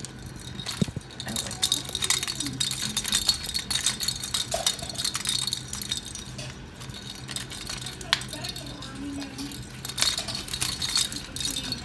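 A cockatoo's shake ball toy rattling and jingling with dense, irregular clinks as a Moluccan cockatoo shakes and plays with it in his cage.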